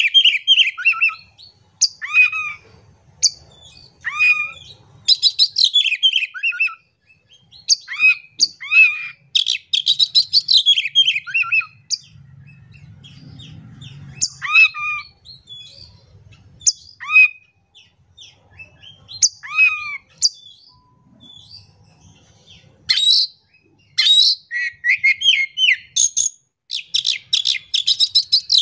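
Oriental magpie-robin singing loud, varied song: repeated phrases of rapid high trills and sharp downward-sweeping whistles, with short pauses between them.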